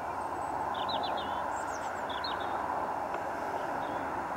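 A steady outdoor rushing noise that swells slightly, with a few short, quick bird chirps about one and two seconds in.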